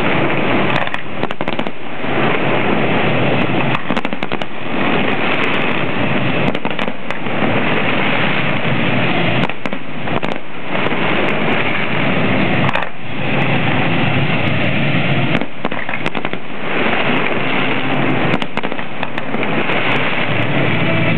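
Fireworks display: aerial shells and firework barrages going off in quick succession, a dense continuous crackle studded with many sharp bangs, easing for a moment several times.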